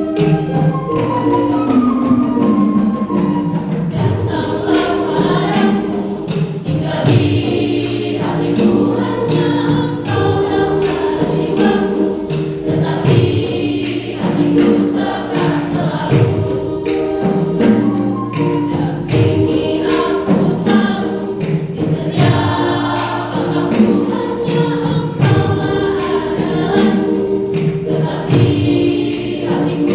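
A school choir singing a praise song in parts, with sustained chords and continuous music.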